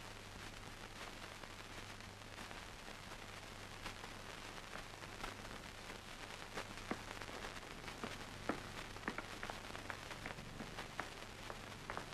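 Steady hiss and low hum of an old film soundtrack, with scattered sharp crackles that come more often in the second half.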